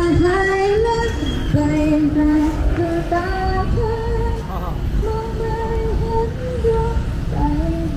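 A high voice singing a melody in long held notes that step up and down, over a steady low rumble of background noise.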